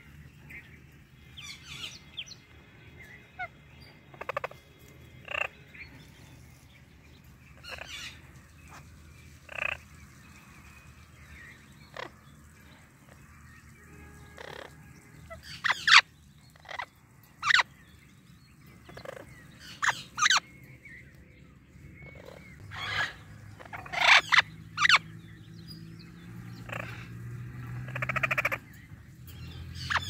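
Pet parrots, an Indian ringneck parakeet and an Amazon parrot, giving short, sharp calls and squawks one every second or two, some much louder than others.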